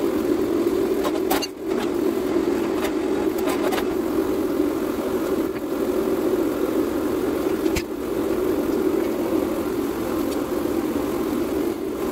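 Steady machine drone from the forging setup running continuously, with a few sharp metal clanks.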